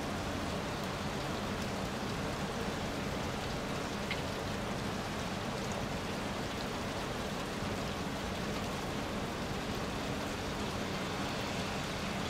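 Steady rain falling on rock and grass.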